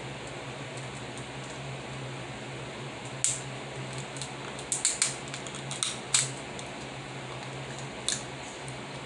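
Snow crab leg shells cracking and snapping as they are broken open by hand and bitten: a single crack about three seconds in, a quick run of cracks near the middle, and one more near the end, over a steady low hum.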